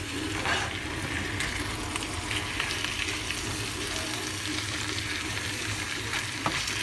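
Watermelon rind chunks and onion sizzling as they sauté in a stainless steel frying pan, stirred with a silicone spatula.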